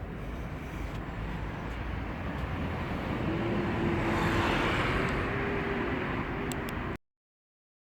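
A motor vehicle engine running, with a steady hum that grows louder for a few seconds before the sound cuts off abruptly near the end.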